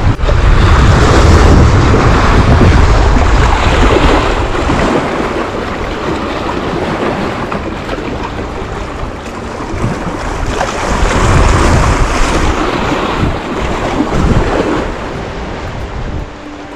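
Wind buffeting the microphone, heaviest as a low rumble in the first few seconds, over a rushing wash of waves that swells and fades several times.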